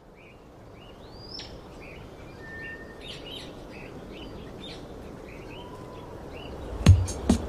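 Birds chirping, many short tweets and whistles, over steady outdoor background noise that fades in. Near the end, loud, sharp percussive hits with a low thump start, the beginning of a beat.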